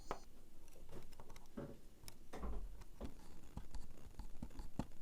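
Faint, scattered clicks and light scrapes of small parts and tools being handled, irregular and a second or so apart.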